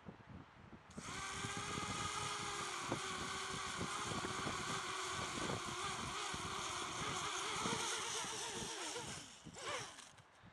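Eachine Falcon 180 quadcopter's brushless motors spinning up about a second in and whining at a steady, slightly wavering pitch for about eight seconds, then cutting off, with a short blip of the motors just after. Wind buffets the microphone throughout.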